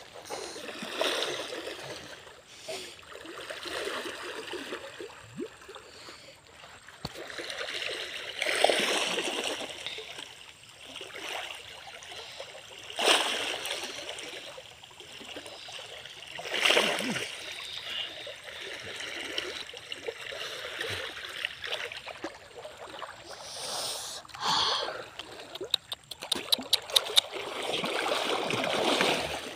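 Water splashing in a shallow muddy stream as a person wades and swims through it to catch fish by hand, with a loud splash every few seconds over the steady run of the water. A run of quick ticks comes near the end.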